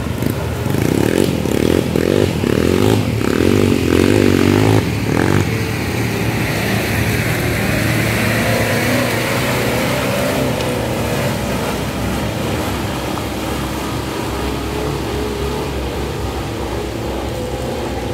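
Ford Everest 4x4's turbodiesel engine working off-road, revving unevenly for the first few seconds and then settling into a steadier drone.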